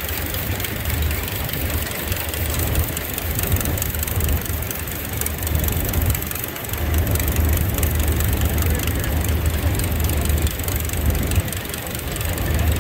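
Farm machinery engine running steadily with a low rumble.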